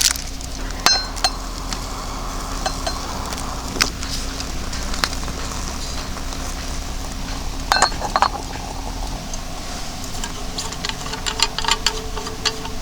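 Metal cutlery and cookware clinking and tapping, a few ringing clinks and a run of small quick taps near the end, over a steady low hum.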